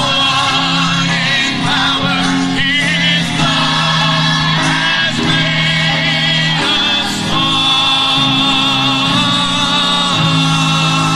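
A congregation singing a gospel hymn together over instrumental accompaniment, with long held notes and steady low bass notes beneath.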